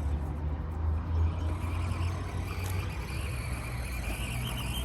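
Small electric motor and gear train of an Axial SCX24 micro RC crawler whining under throttle, the thin whine rising slightly in pitch for a few seconds and stopping abruptly near the end, over a steady low rumble.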